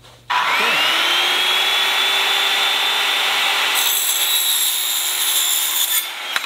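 Circular saw fitted with a Diablo Steel Demon 7-1/4-inch, 48-tooth cermet steel-cutting blade, starting with a rising whine that settles to a steady pitch, then cutting through 1/16-inch steel channel. The cut adds a harsher, higher metallic ringing from about four seconds in. Near the end the saw spins down.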